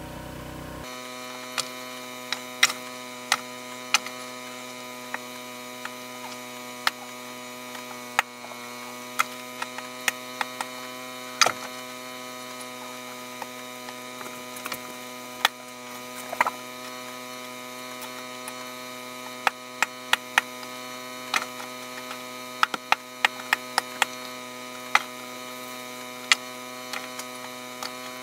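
Steady electrical hum made up of many even overtones, with irregular sharp clicks and ticks scattered through it.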